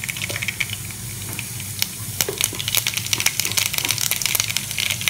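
Mustard seeds sizzling and crackling in hot coconut oil in a frying pan, the sharp pops coming thicker from about two seconds in as the seeds start to splutter, the sign the oil is hot enough for tempering. The sound cuts off suddenly at the end.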